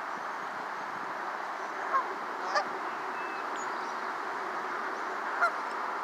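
Canada geese honking: three short honks, about two seconds in, again half a second later, and a louder one near the end, over a steady background hiss.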